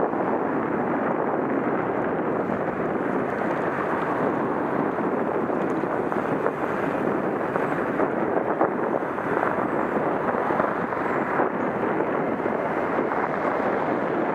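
Steady wind noise rushing over a head-mounted camera's microphone as the wearer moves along the trail.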